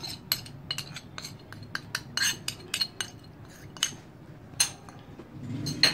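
A spoon clinking and tapping against ceramic dishes as spices are knocked out of a small dish into a clay tagine: a quick irregular run of light clinks in the first second or so, then single clinks every second or so.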